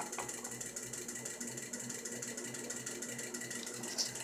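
Steady low mechanical hum with an even, repeating low pulse, like a small machine or appliance running in the background; a light tap near the end.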